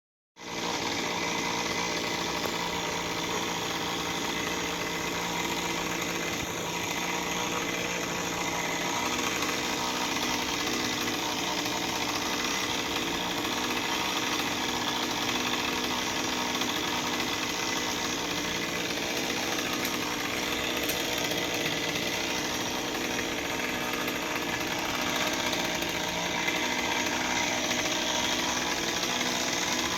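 Small petrol engine of tree-work equipment running steadily at an even level, starting abruptly right at the start.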